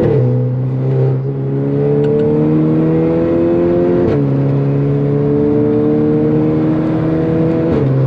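Tuned Volkswagen Golf 6 GTI engine accelerating hard, its pitch climbing steadily through each gear. Its pitch drops abruptly at quick gearbox upshifts right at the start, about four seconds in and just before the end.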